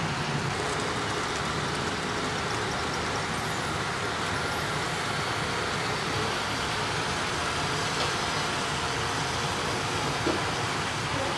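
Steady running noise of a large model-railway hall: HO-scale model trains running along the track, with a few faint clicks.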